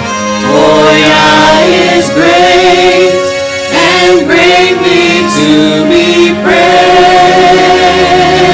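Gospel-style worship music: a group of voices singing over steady, held low instrumental notes.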